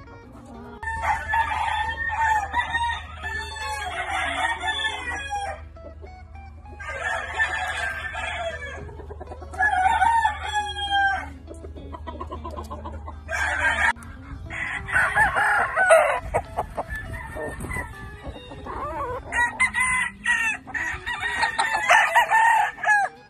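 Doc Robinson gamefowl roosters crowing, about six long crows one after another with short pauses between.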